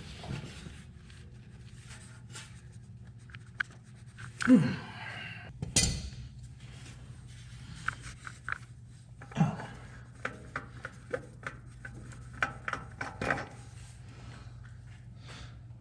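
Clicks, scrapes and knocks of hands and a tool working at a tight spin-on oil filter on a Polaris RZR 1000XP engine, with a heavier thump about six seconds in and a run of light clicks near the end, over a steady low hum.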